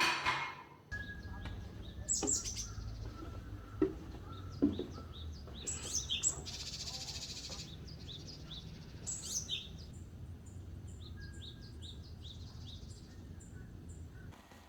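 Small songbirds chirping and singing outdoors: many short, repeated high chirps and a brief buzzy trill, over a steady low rumble. A short rush of noise opens the stretch.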